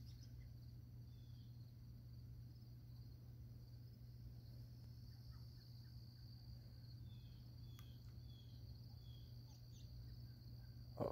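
Faint pond-side ambience: a steady high-pitched insect trill under a low steady hum, with a handful of short bird chirps, most of them past the middle. A soft knock comes right at the end.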